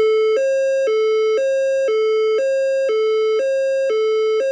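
Voice-evacuation fire alarm system sounding its alert signal tone: a low and a high tone alternating about every half second. The tone signals a reported event in the building that is being verified, an alert to await instructions rather than an evacuation order.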